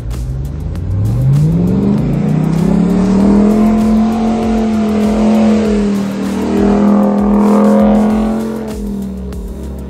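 Ram pickup truck engine revving up hard over about two seconds, then held at high revs with a brief dip, easing off near the end.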